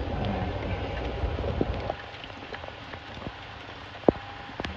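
Steady rain falling on surfaces, heavier with a low rumble for the first two seconds and then quieter. A couple of sharp clicks come near the end.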